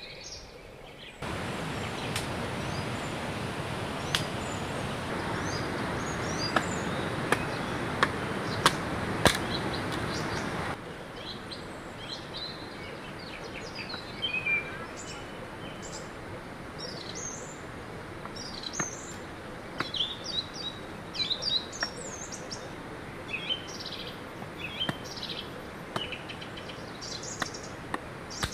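A steady rush of river water starts suddenly about a second in and stops abruptly about ten seconds in, with several sharp knocks during it. After that, birds chirp repeatedly over a quieter outdoor background, with occasional snaps and clicks of sticks being handled.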